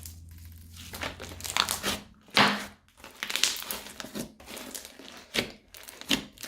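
Hands squeezing and working slime, giving irregular crinkly, crackling bursts, the loudest about two and a half seconds in.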